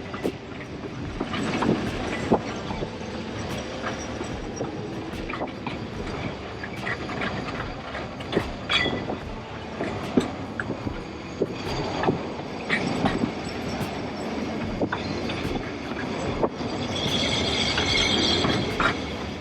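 Great Orme Tramway cable-hauled tramcar running along its rails, a steady rumble with scattered clicks and clanks, and a high-pitched squeal near the end.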